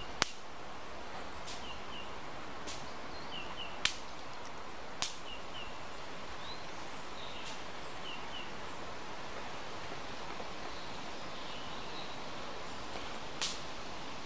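Steady outdoor background hiss with faint, short chirps that come mostly in quick pairs, and four sharp clicks, the loudest about four seconds in.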